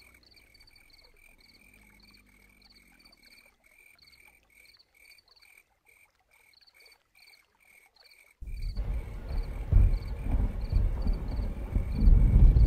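Swamp sound-effect recording of frogs chirping steadily, about three short calls a second. About eight seconds in, a loud low rumble of thunder sets in suddenly and keeps rolling under the chirps.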